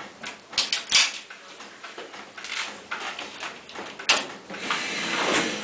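Stationary steam winding engine being set going: a few sharp metallic knocks, the loudest about a second in and again about four seconds in, then a steady steam hiss building near the end as steam is let in to wind the hoist drum back up.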